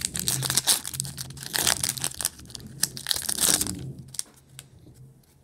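Foil wrapper of a 2020 Playoff football card pack crinkling and tearing as it is torn open and handled. The dense crackling stops about four seconds in, leaving a few light clicks.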